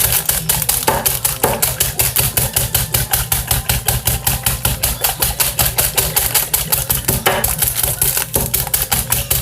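Rapid, even pounding on a sealed bag of Hot Cheetos, several blows a second, crushing the chips inside into small pieces.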